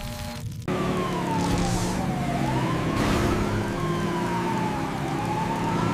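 Police car siren wailing, its pitch sliding slowly down and back up about every two and a half seconds, starting suddenly about half a second in.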